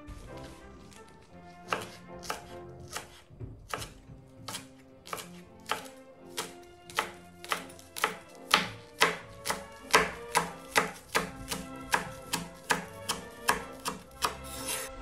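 Knife chopping on a cutting board, one sharp stroke about twice a second, the strokes growing louder in the second half, over background music.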